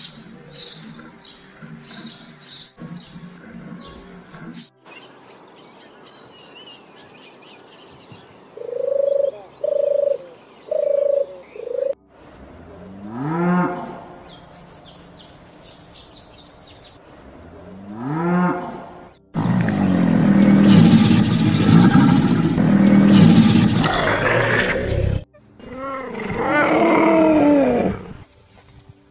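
A string of separate animal calls, one after another: small-songbird chirps first, then four short even calls, two long calls that rise and fall in pitch, a loud dense roar-like call lasting about six seconds, and finally a run of short arching calls.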